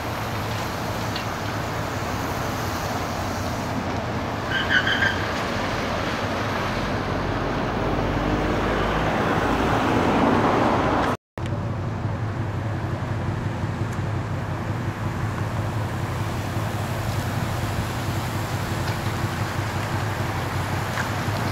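Outdoor street traffic noise with a car driving past, the sound swelling to its loudest about ten seconds in and breaking off for an instant just after. A few short high peeps sound about five seconds in.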